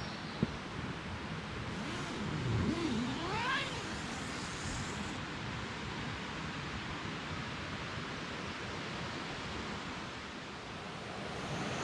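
Steady rushing of a mountain trout stream, an even noise with no rhythm. A single click comes just after the start, and a brief pitched sound dips and then rises quickly about two to four seconds in.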